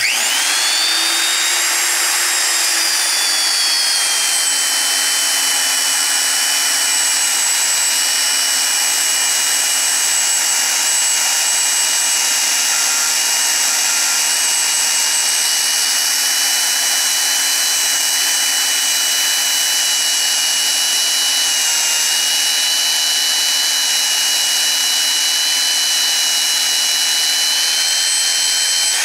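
Hougen HMD130 magnetic drill starting up and cutting a hole through steel tubing with a RotaLoc Plus annular cutter. Its motor whine rises as it spins up, then settles a little lower about three seconds in as the cutter bites, and runs steadily under load.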